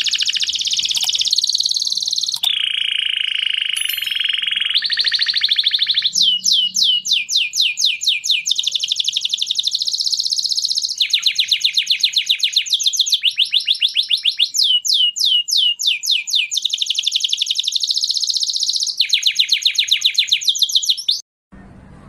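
Domestic canary singing a long song of rapid repeated trills. It switches between fast high sweeping phrases and a lower rolling trill, and cuts off suddenly near the end. This is a male's breeding song, played to bring hen canaries into mating condition.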